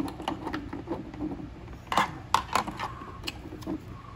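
Plastic cover pieces of a sprinkler controller housing being handled and fitted: a series of light plastic clicks and taps, the loudest a pair about two seconds in.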